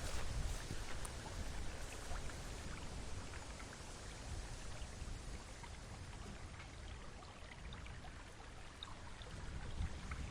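River water flowing steadily, a constant rushing, with wind rumbling on the microphone underneath.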